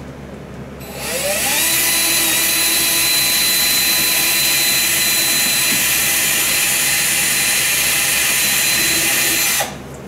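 Handheld power drill spinning up about a second in, rising in pitch, then running steadily as it bores a pilot hole into the wall at a stud, stopping abruptly just before the end.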